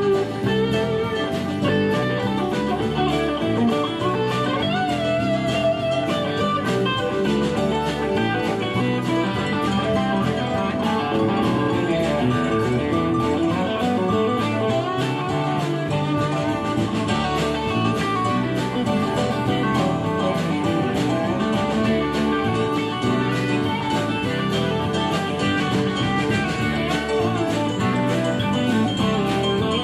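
Live band playing an instrumental passage: electric and acoustic guitars over bass and drums, with a steady drum beat throughout.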